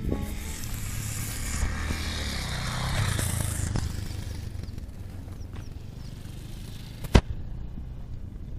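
Enduro motorcycle engine running under way, with wind rushing over the microphone; the wind noise is heaviest in the first four seconds and then eases. A single sharp knock comes about seven seconds in.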